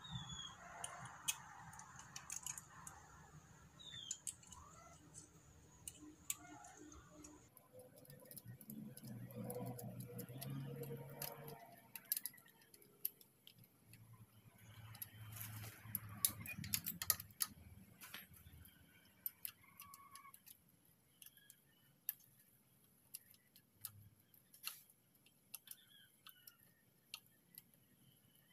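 Faint, scattered metallic clicks and clinks of a small nut, washer and wrench being handled and threaded onto a bolt on a motorcycle frame.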